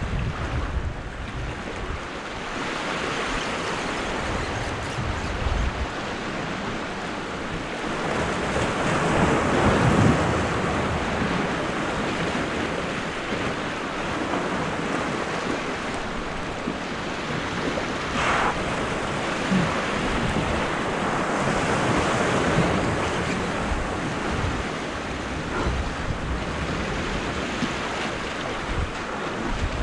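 Ocean waves washing and surging over the rocks of a jetty, swelling and easing, loudest about a third of the way in. Wind buffets the microphone, most in the first few seconds.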